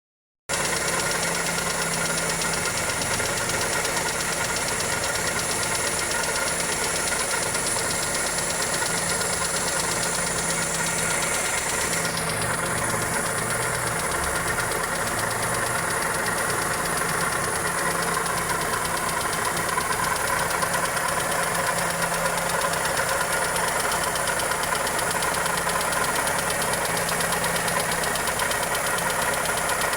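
Toyota 2E 1.3-litre four-cylinder engine idling steadily with a ticking knock. The knock could come from the valvetrain or a connecting rod.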